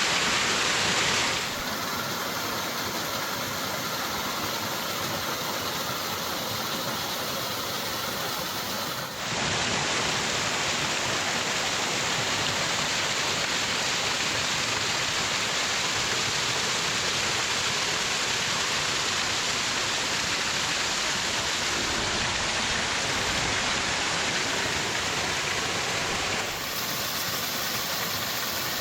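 Mill Creek Falls rushing with a steady roar of water. The sound's level and tone change abruptly about a second in, about nine seconds in and again near the end.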